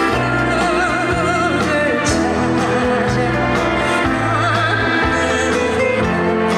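Trot song played live over a backing track: a lead melody with wide vibrato over a steady bass line and drum beat.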